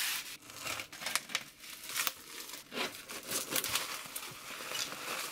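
Plastic parcel wrapping and packing tape crinkling as the parcel is pulled open, in irregular sharp crackles.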